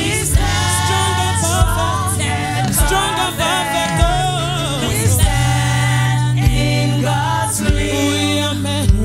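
Gospel worship song sung by a group of voices over keyboard accompaniment, with a steady bass and a drum hit about every second.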